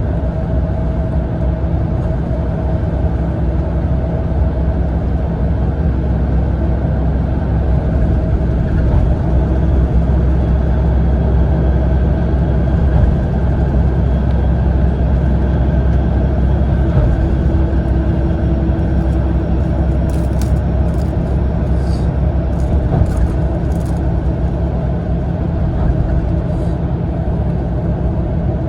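Steady cabin noise of a Mitsubishi Fuso Aero Ace coach on the move, heard from inside: a heavy, even rumble of engine and road with a faint steady whine. A few light clicks or rattles come about two-thirds of the way through.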